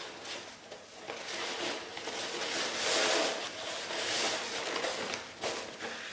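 Crepe paper rustling and crinkling as it is pulled taut and wrapped around a paper cone. The rustle comes unevenly and is loudest around the middle.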